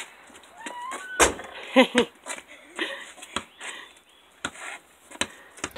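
A basketball bouncing and being handled on a concrete driveway: a series of irregular sharp knocks, the loudest about a second in with a deep thud. A short high call sounds just before it and a brief pitched cry about two seconds in.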